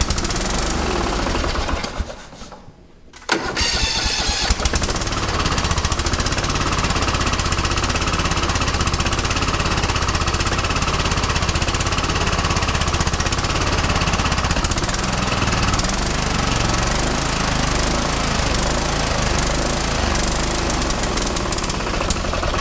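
Riding mower engine being cranked by its starter, pausing for about a second, then starting at about three seconds in and running steadily. The engine block is cracked and the cylinder bolts are loose, so the cylinder jug rocks each time it fires.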